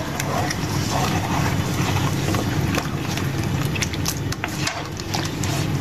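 A spoon stirring chicken and green masala in a frying pan, clicking and scraping against the pan over steady sizzling.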